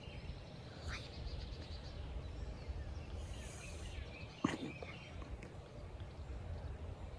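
Outdoor ambience: a steady low rumble of wind with a few short bird chirps, and one sharp click about four and a half seconds in.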